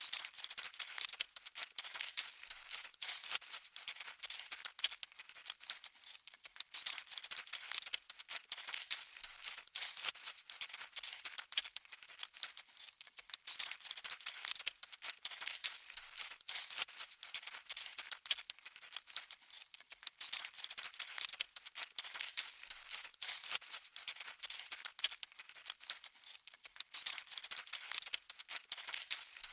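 Insect walking sound effect: a dense, unbroken skitter of tiny crisp clicks and ticks, thin and light, like many small legs tapping.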